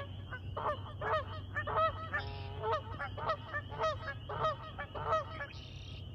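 Canada geese honking, about ten calls in quick succession roughly half a second apart, with one longer drawn-out call about two seconds in.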